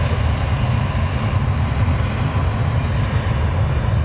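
Airbus A320 jet engines at takeoff power, a steady loud rumble and roar with no change in pitch.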